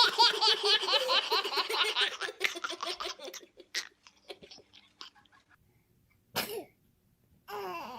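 High-pitched laughter in quick, repeated bursts that fades out about three and a half seconds in. A single short, sharp vocal burst follows about six and a half seconds in.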